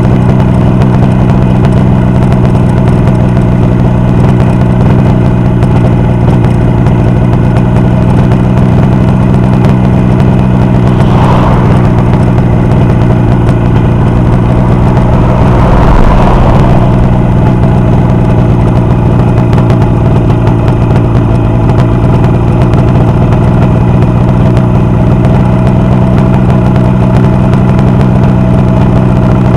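Motorcycle engine idling steadily on a test run, with two brief swells of extra noise near the middle.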